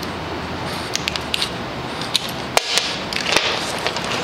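Small clicks and clinks of a dog harness's buckles and leash clips being handled and fastened, with a couple of sharper snaps about two and a half seconds in.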